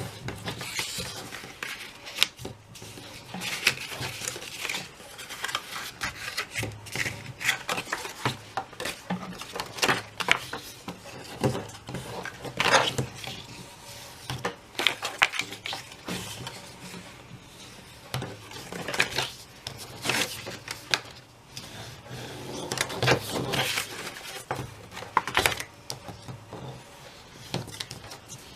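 Scored paper box pieces being folded and creased by hand along their score lines: irregular crackles, rubbing and light taps of the paper on the table.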